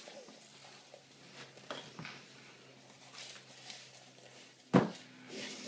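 Several people chewing dry saltine crackers with their mouths full: faint scattered crunches and mouth clicks. One sharp thump near the end is the loudest sound.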